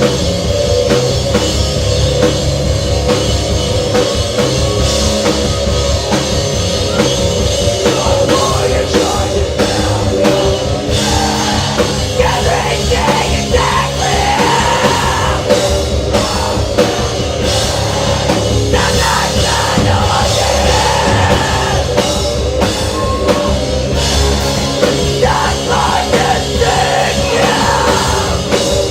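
Live rock band playing a song at full volume: pounding drum kit under a dense wall of amplified instruments, with singing coming through in parts.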